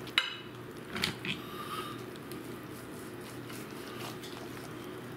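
Carving knife and fork working through a cooked rotisserie chicken: a sharp metallic clink just after the start, then a couple of soft squishy cuts about a second in, over a steady low hum.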